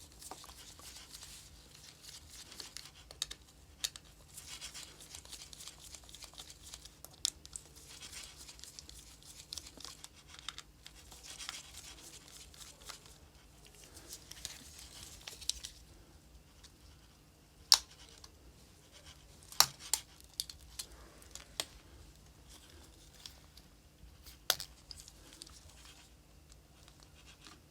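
Small hand tools working on an opened smartphone's internals: scratchy scraping and rustling for the first half. Then a few sharp clicks of parts and tools being set down or snapped loose.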